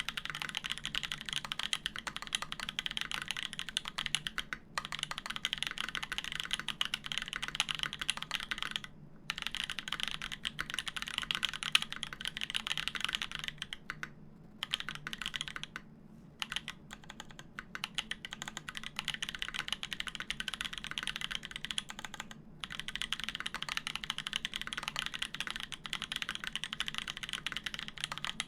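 Fast, continuous typing on a custom mechanical keyboard with lubed Gazzew Boba U4T tactile switches on a polycarbonate plate, giving a dense stream of soft clacks. The typing breaks off briefly several times before resuming.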